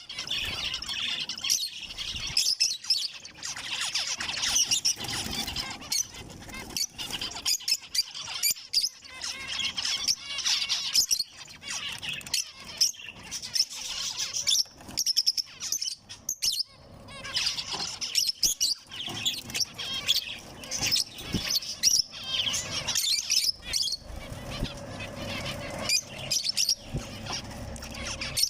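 Zebra finches chirping, short high calls following one another in quick succession.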